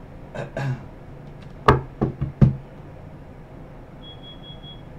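Four sharp knocks in quick succession about two seconds in, then a faint steady high beep near the end.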